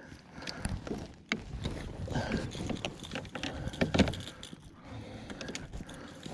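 Irregular clicks, knocks and rustling from handling a freshly caught redfish and its lure, with one sharp knock about four seconds in.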